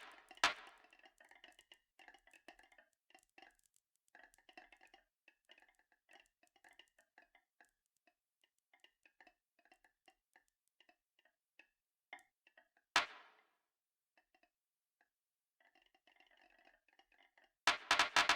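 Marbles rolling and clattering along a marble run track: a patter of small clicks, sparser in the middle, with a sharp clack about half a second in, another about two-thirds of the way through, and a quick burst of loud clacks near the end.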